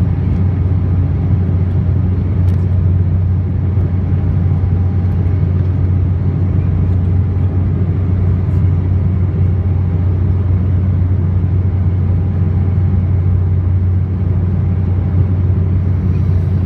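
Steady low cabin drone of an Embraer E195 airliner in flight, heard from a window seat over the wing. It is the hum of its turbofan engines and the airflow, strongest in a deep hum and even throughout.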